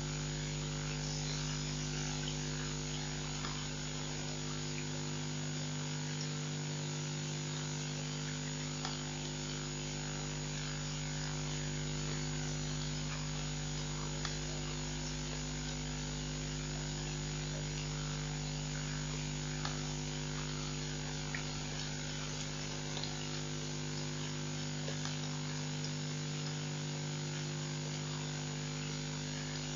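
Steady electrical mains hum, several even tones over a constant hiss, with a few faint scattered ticks.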